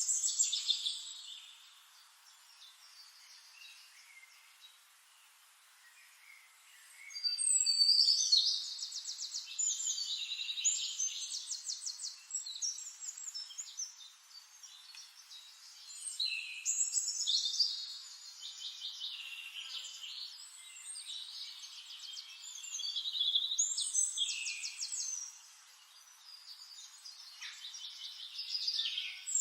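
Songbirds singing in repeated phrases of fast, high trills and chirps, with quieter pauses of a few seconds between phrases.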